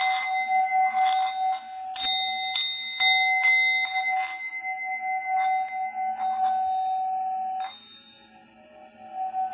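A steady bell-like ringing tone, punctuated by several sharp metallic strikes, is cut off suddenly near the end.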